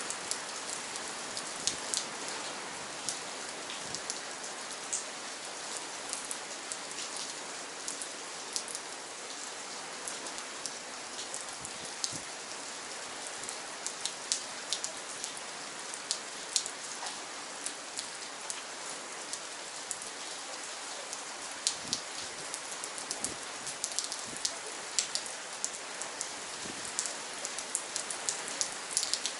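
Steady rain falling, an even hiss with many separate drops splashing close by.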